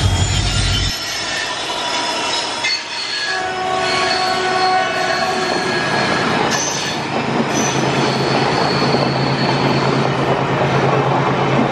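WDP4D diesel locomotive passing close, its engine drone dropping away about a second in. The LHB passenger coaches then roll past with steel wheels squealing on the curve and rail clatter. From about six seconds in, the low steady hum of a second diesel locomotive joins as an oncoming freight train approaches on the next track.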